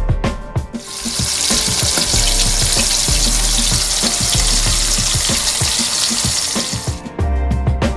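Flour-dredged buttermilk chicken pieces frying in hot oil in a pan: a loud, dense sizzle that comes in about a second in and stops about a second before the end, with background music with a beat underneath.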